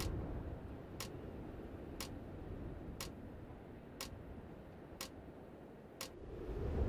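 Countdown-clock tick sound effect, one sharp tick each second, over a low drone that swells near the end.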